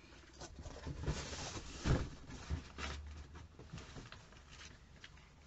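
Faint handling noises: light knocks and rustling, loudest about two seconds in, as plastic bottles of lotion are picked up and moved off camera.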